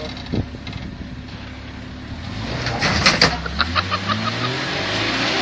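A 4x4 SUV engine towing a caravan runs steadily, then revs up over the last three seconds as it strains to haul the caravan, which is stuck in a tight gap. About three seconds in comes a quick cluster of sharp knocks and clicks.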